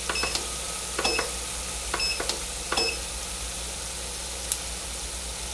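Hot canola oil in a DeLonghi electric deep fryer sizzling steadily, with fried chicken thighs draining in the basket above it. Several short, sharp metallic clicks come in the first three seconds, and one more comes near the end.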